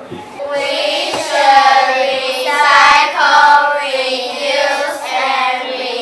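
Children singing a song together, starting about half a second in.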